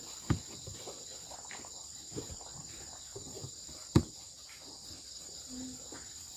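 Steady, high-pitched chirring of crickets in the background, broken by a few sharp clicks, the loudest about four seconds in.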